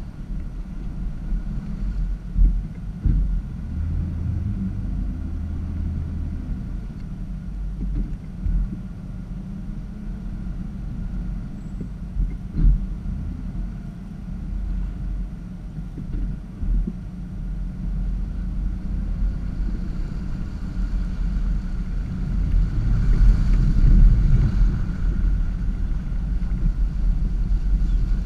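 Land Rover Discovery driving slowly through a shallow creek: a steady low engine rumble with a few dull thumps from the wheels and body, and water washing around the vehicle, loudest a few seconds before the end.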